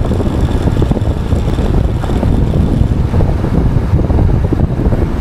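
Heavy wind noise on the microphone of a moving Honda X-Blade motorcycle, with its single-cylinder engine running underneath.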